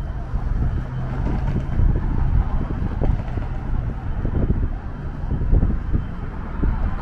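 Downtown street traffic: passing vehicles with a low engine hum, over an irregular low rumble of wind gusting on the microphone.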